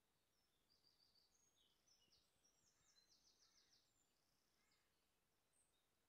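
Faint high-pitched chirps and a quick trill of a small songbird, from about half a second to about four seconds in, over faint background hiss.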